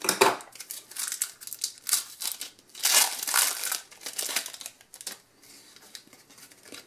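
Opened foil booster pack of Match Attax trading cards crinkling as it is handled and the cards are slid out, in irregular bursts, loudest about three seconds in, fading to faint rustles near the end.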